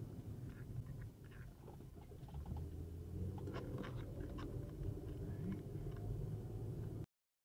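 Faint low rumble of a car's engine and tyres heard inside the cabin through a dashcam, with scattered light clicks and rattles. The sound cuts off abruptly near the end.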